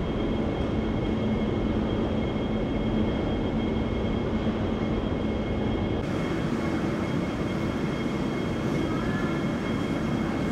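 Boeing 777's jet engines running at idle: a steady rumble with a thin high whine over it. About six seconds in, the sound turns brighter.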